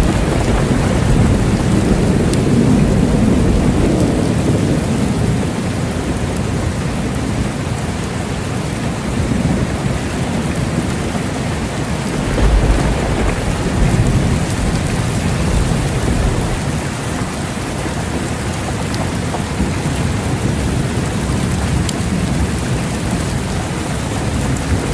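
Steady heavy rain with low rolling thunder, the rumbles swelling at the start, again about halfway through, and near the end.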